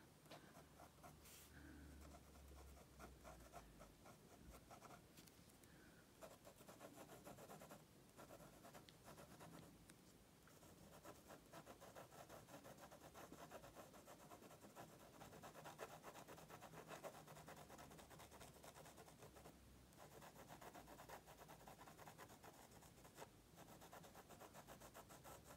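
Faint scratching of a fine-tip Sakura Pigma Micron pen on heavy paper: many short, light shading strokes, the nib barely touching the paper.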